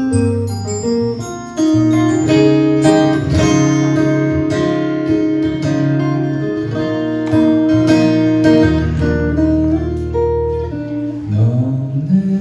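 Instrumental music led by guitar, with held notes over a bass line and no singing.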